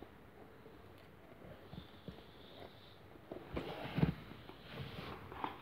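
Hands handling a handmade cardboard storage cabinet: faint rustling and scraping of cardboard, with a short cluster of knocks and scrapes about three and a half to four seconds in.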